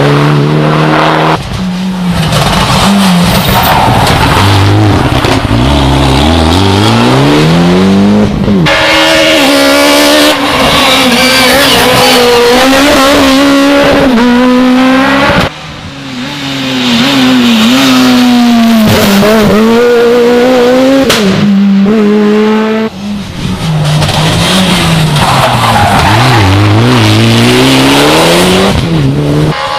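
Rally cars driven hard on a special stage, several passes in turn: engines rev high, drop back at each gear change and rev up again.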